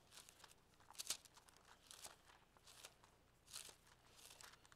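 Faint rustling of thin Bible pages being leafed through, several short swishes about one a second.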